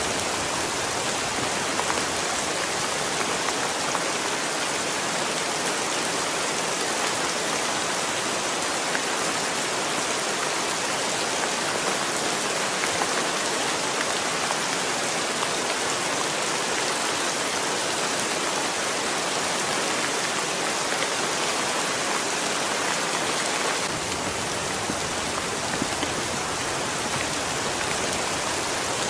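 Heavy rain falling steadily on a concrete ledge and wet leaves, a dense, even hiss of drops.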